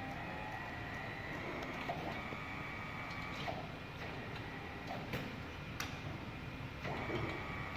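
Welding rotary positioner's electric turntable drive running with a steady hum and a faint whine that drops out and comes back, and several sharp clicks spread through.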